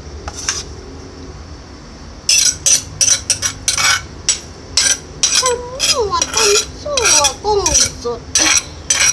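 Pestle and spoon working papaya salad in an earthenware mortar. From about two seconds in there is a sharp clatter and scrape about two to three times a second.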